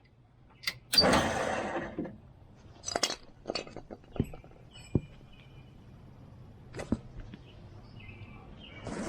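A short rushing noise about a second in, then scattered light metallic clinks and knocks, with faint bird chirps in the background.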